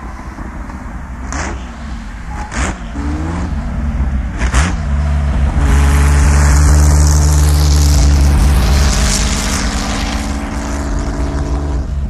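Auto Union Typ C's supercharged 6-litre V16 engine being blipped three times, each rev rising and falling, then revved up and held high for several seconds before easing back slightly.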